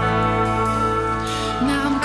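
Worship band music: sustained, steady chords with a singing voice.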